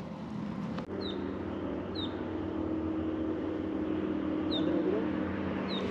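A steady engine hum, with a few short, high, falling chirps from a bird about once a second or two.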